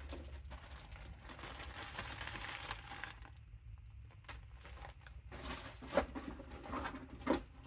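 Small plastic parts bags crinkling and rustling as someone rummages through them, with a quieter pause partway through and a couple of sharp clicks near the end.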